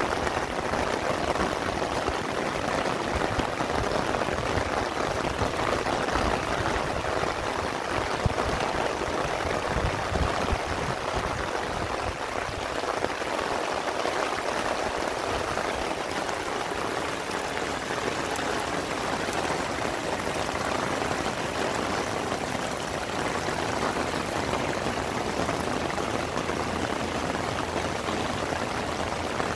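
Heavy rain falling steadily on grass and on the greenhouse's corrugated roof and plastic panels, with a downspout pouring a stream of rainwater into a plastic barrel.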